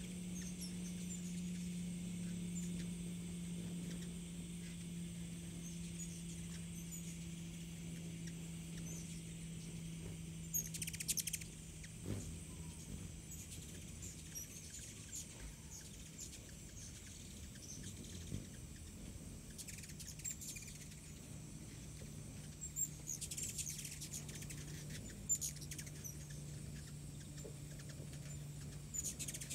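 Hummingbirds at the feeders giving sharp high chips and short bursts of chattering twitters, several times. A steady low hum and a faint steady high drone run underneath.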